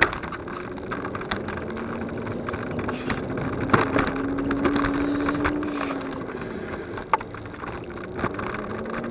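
Superpedestrian electric scooter's motor whining while riding, its pitch slowly rising as it picks up speed, dropping as it slows about six to seven seconds in, then rising again near the end, over rumbling road and wind noise. A few sharp knocks and rattles, the loudest about four seconds in and again about seven seconds in.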